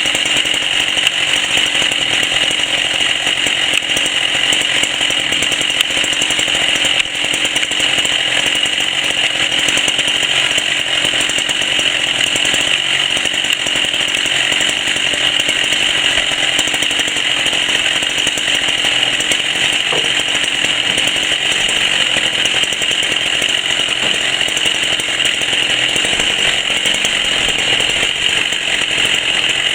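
Chainsaw running loud and steady at a constant speed.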